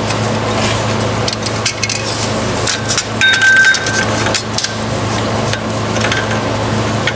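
Hand tools clicking and knocking on metal while the pressure-plate bolts are worked in, with a brief high ringing tone about three seconds in, over a steady low hum.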